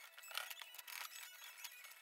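A rear brake caliper being scrubbed and turned over by hand in a metal parts-cleaning basin: faint, irregular scraping with small clinks of metal on metal.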